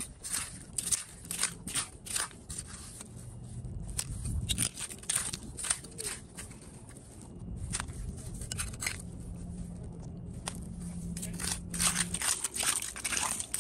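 Metal clam rake digging and scraping through a mudflat bed of broken shells: sharp crunches and clinks of shell come in quick flurries with short pauses between.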